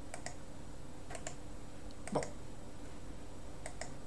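Several clicks of a computer mouse, mostly in quick pairs, with one heavier knock about two seconds in.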